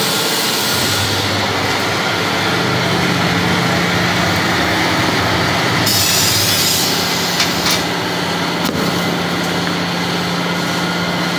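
Electric waste-tyre cutting machine running with a steady motor hum as it turns a passenger-car tyre against its cutter. A louder hiss comes for about a second around six seconds in, and a few sharp knocks follow shortly after.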